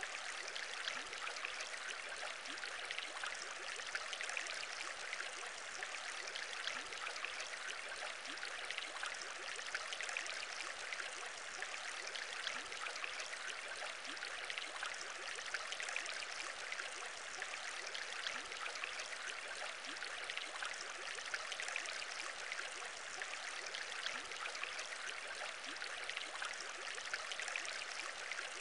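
Steady bubbling of aquarium water: a continuous dense fizz of many small bubbles popping at an even level.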